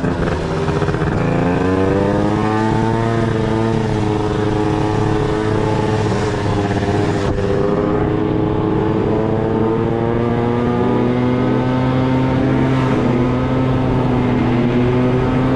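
Scooter engine running under way. Its pitch dips about a second in, then climbs and holds fairly steady.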